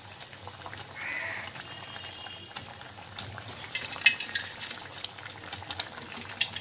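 Spiced fish-kofta gravy boiling in a kadai: a steady hiss with small bubbles popping and crackling, the pops getting thicker after a couple of seconds. A brief high tone sounds about a second in.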